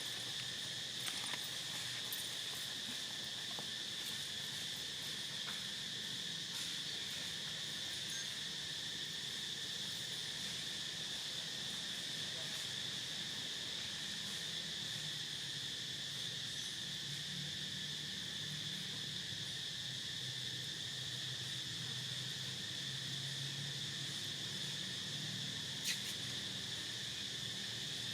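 Steady, high-pitched drone of an insect chorus, with a couple of faint clicks.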